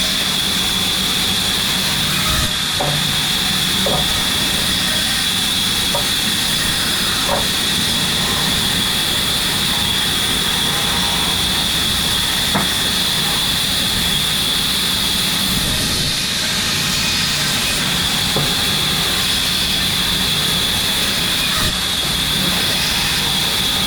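Steady machine noise with a constant high whine, running without change, with a few light clicks or knocks.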